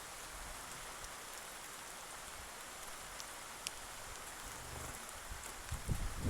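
Steady, even outdoor hiss with no voices, with a single faint sharp tick a little past halfway and low irregular thumps starting near the end.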